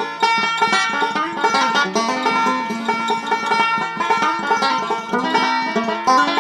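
Background music: a quick, steady bluegrass-style tune led by a plucked banjo.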